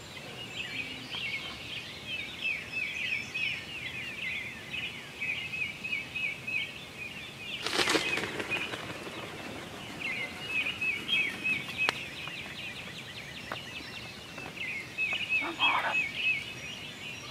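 A steady chorus of high, rapidly repeated chirping calls from small animals in the woods. About eight seconds in comes one loud, rushing burst lasting about half a second, and a couple of fainter bursts follow near the end.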